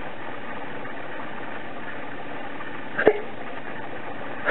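A steady mechanical-sounding hum, broken by one short, sharp sound about three seconds in.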